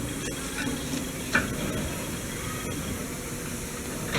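Steam locomotive hissing steadily as steam escapes, with one short knock about a second in.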